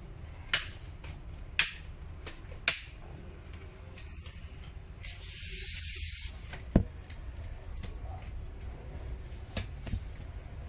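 Handling noise while the rotary hammer drill sits idle: a few sharp clicks and knocks, and a hiss lasting about two seconds around the middle.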